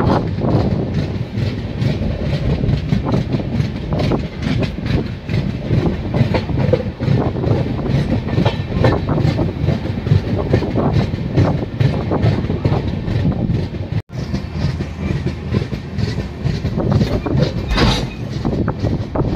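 Passenger train running along the track, heard from the doorway of a moving coach: a steady rumble of wheels on rail with a run of clickety-clack over the rail joints. The sound drops out for an instant about two-thirds of the way through, and there is a louder clatter near the end.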